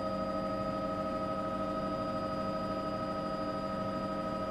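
Helicopter engine and rotor drone heard inside the cabin, a constant hum made of several steady tones over an even rumble.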